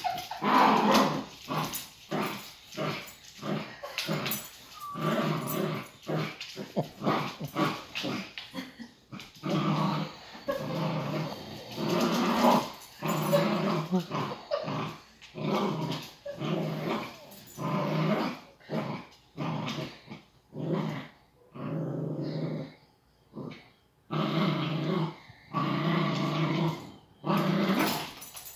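Dogs growling in play while tugging on a toy, in repeated growls with short breaks and a longer pause about three quarters of the way through.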